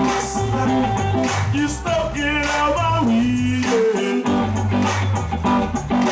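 Live band music: electric guitar and bass guitar over a steady drum beat, with a lead line bending in pitch around the middle.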